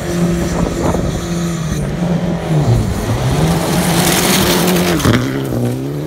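Rally car engine running at high revs on the line, then launching and pulling away on gravel, with a hiss of spraying gravel about four seconds in. Near the end the engine pitch drops and climbs again as it changes gear.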